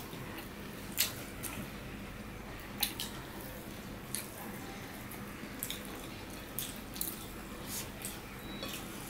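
Eating sounds of rice and curry mixed and eaten by hand: wet squishes of fingers working rice on plates and smacking chewing mouths, heard as a string of short wet clicks spaced irregularly about a second apart over a low steady room hum.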